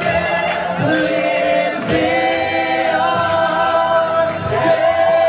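Singing waitstaff performing a song with several voices together over music, holding long notes and ending on one long held note.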